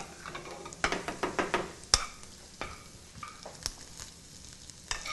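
Metal spoon clinking and scraping in a frying pan as pan-fried gnocchi are spooned out, about five sharp clinks over a faint sizzle from the hot pan.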